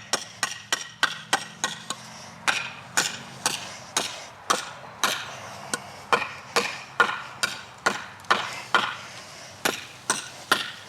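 5160 steel cleaver chopping into wood in a steady run of sharp strikes, about four a second at first, then about two a second.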